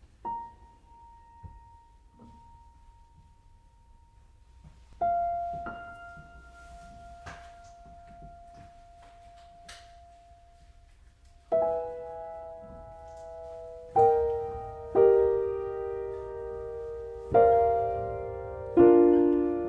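Grand piano improvising: a single high note struck and left to ring, a second long-held note about five seconds in, then, from about halfway, fuller chords struck one after another, each left to ring and fade, the lower notes moving downward near the end.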